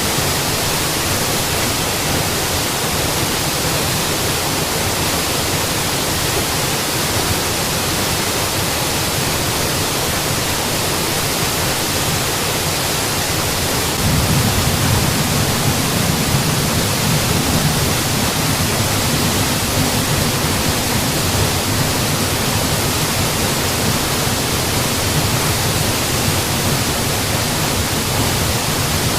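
Mountain waterfall: a steady rush of falling water, with its low rumble growing a little stronger about halfway through.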